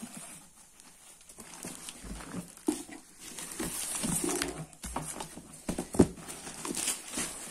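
Foam-wrapped, taped packages being handled and set down: rustling and crinkling of the packing foam and tape, with scattered knocks, the sharpest about six seconds in.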